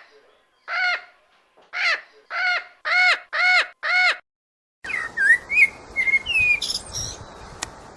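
A quick series of six short animal calls, each rising and falling in pitch. About five seconds in they cut off and give way to an outdoor background with scattered bird chirps and whistles.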